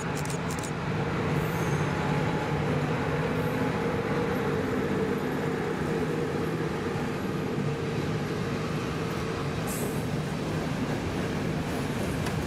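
Loco-hauled passenger train running slowly past, pulled by an electric locomotive: a steady rumble and hum from the locomotive and coaches. Brief high-pitched squeaks come near the start and about ten seconds in.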